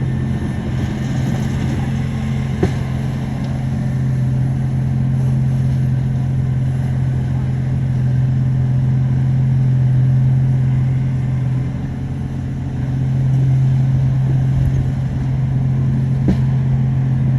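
Heavy diesel engine of earthmoving machinery running steadily with a deep, even hum. It eases off briefly about twelve seconds in, and two sharp knocks are heard.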